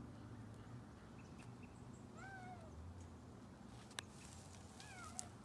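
A cat meowing faintly, twice: a rising-and-falling meow a little past two seconds in and a falling one near the end. There is a single sharp click about four seconds in.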